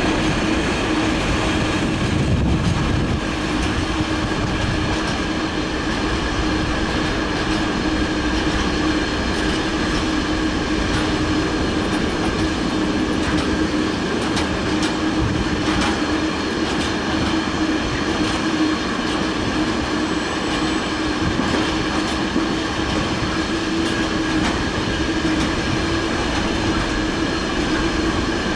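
Container wagons of a freight train rolling past at speed: continuous wheel-on-rail noise with a steady tone through it and scattered clicks as the wheels cross the rails.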